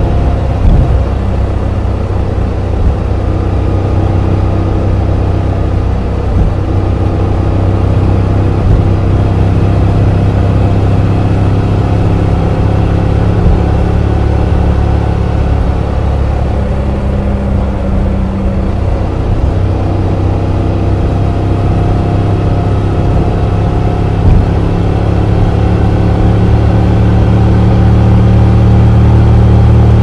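Motorcycle engine and exhaust, an Akrapovic header with the stock muffler, running steadily under way and recorded from on board. The engine note climbs and grows louder over the last few seconds as the bike accelerates.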